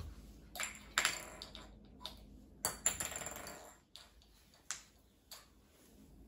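A small plastic pacifier clattering and rolling on a laminate floor as a crawling baby knocks it about. There are a few sharp taps, and two longer rattling rolls about a second in and near three seconds in.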